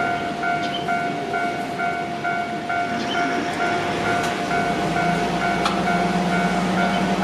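Japanese level crossing warning bell ringing, a repeating electronic ding about twice a second over a steady tone. About five seconds in, the running noise of a Shizuoka Railway A3000 series electric train comes in and grows slightly louder as it approaches.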